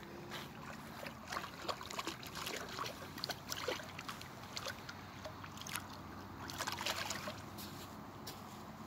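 Small, irregular splashes and trickling in shallow water as a live carp is eased off the shore and flaps its way into deeper water, with a busier spell of splashing about a second in and another near seven seconds.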